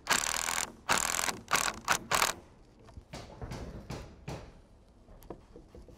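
Power drill running in about five short bursts over the first two seconds, drilling into a cedar railing cap to fasten it to the post with stainless steel screws, then fainter clicks and rustles.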